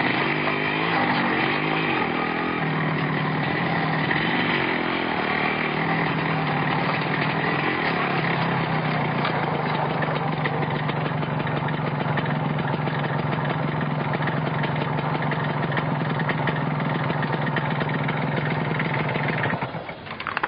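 Yamaha RX100 two-stroke single-cylinder motorcycle engine running, its pitch rising and falling with light throttle for the first several seconds, then settling to a steady idle. The sound cuts off abruptly near the end.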